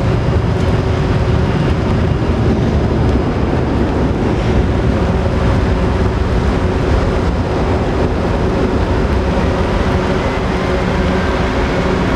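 Jet engine noise of a Boeing 737-500 climbing out after takeoff: a steady, loud, low rumble from its CFM56 turbofans, with a faint tone rising slightly near the end.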